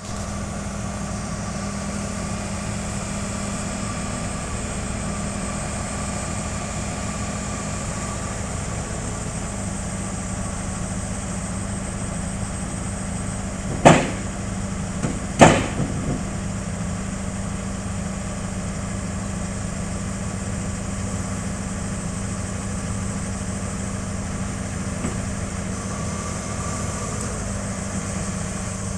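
Heavy diesel engine idling steadily, with two sharp knocks about a second and a half apart near the middle.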